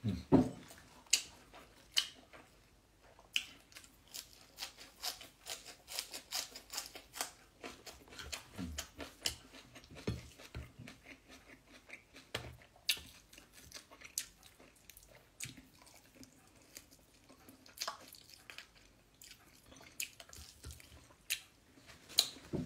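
Close-up eating sounds: a mouthful of rice and chicken rica-rica being chewed, giving an irregular run of short wet clicks and smacks.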